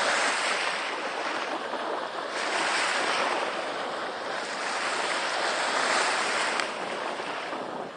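Small sea waves breaking and washing up a sandy beach: a steady hiss that swells and eases every two to three seconds.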